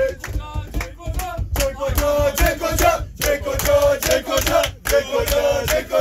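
A group of men chanting and singing together in a loud celebration, with frequent sharp claps or beats through it.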